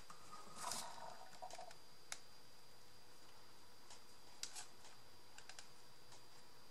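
Scattered light clicks and taps, with a brief rustle about a second in, from paper or card craft pieces being handled and fitted by hand.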